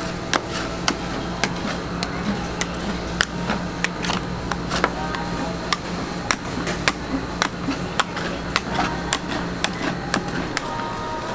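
Two metal spatulas tapping and scraping against a frozen cold plate as ice cream is chopped and spread into a thin sheet for rolled ice cream: sharp, irregular clacks, about two or three a second.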